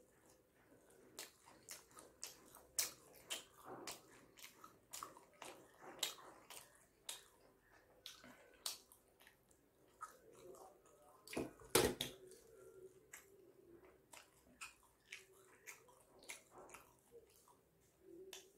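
Close-up wet chewing and lip-smacking while eating soft steamed chicken momos, heard as many short, irregular mouth clicks, with one louder knock a little before the twelve-second mark.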